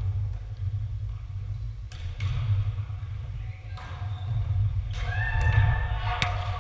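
Volleyball rally in an echoing gym. The ball is hit sharply about two seconds in and again near the end, and players call out shortly before the end, all over a steady low rumble.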